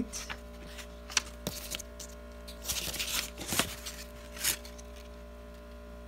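Paper and packaging being handled, with short rustles and a few sharp clicks, over a steady low electrical hum.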